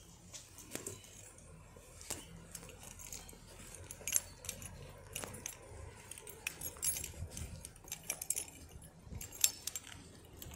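A run of irregular small clicks and clinks, like light objects being handled.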